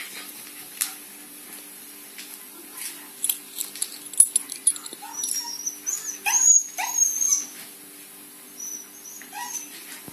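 Paralysed puppy dragging himself on his front legs across a parquet floor: scattered clicks and scrapes of claws and nappy on the wood, with a run of high-pitched squeaky calls about halfway through.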